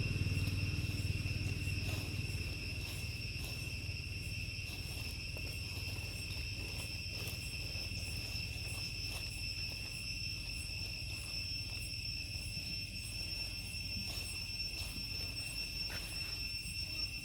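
Insects droning in a steady high-pitched tone. A low vehicle rumble fades out in the first couple of seconds.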